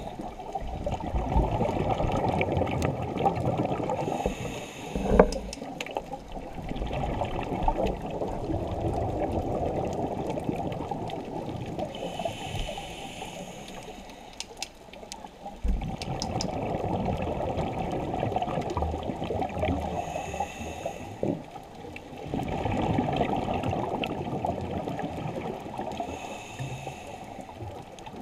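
Scuba diver's breathing through a regulator, heard muffled through an underwater camera housing: continuous bubbling and gurgling, with a brief higher hiss about every six to eight seconds as the breathing cycle repeats.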